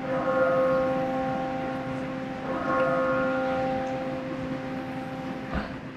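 Church bell tolling slowly: two strokes about two and a half seconds apart, each ringing on and slowly dying away.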